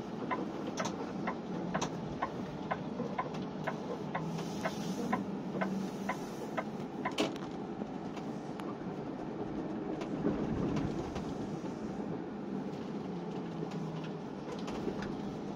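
In-cab noise of a Hyliion ERX electric truck driving on battery power alone, its generator off: a steady road and drivetrain hum. Over it, for the first seven seconds or so, a turn signal ticks about two to three times a second.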